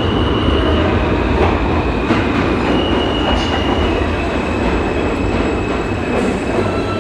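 New York City subway train running, a loud steady rumble with a high-pitched squeal from the wheels.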